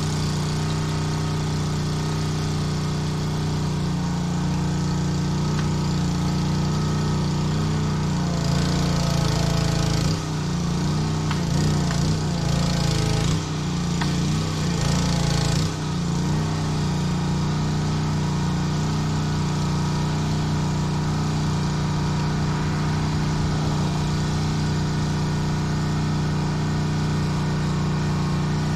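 Small gasoline engine of a Honda pressure washer running steadily. For several seconds in the middle a louder hiss of spraying water comes in and the engine sound wavers, then it settles back to a steady run.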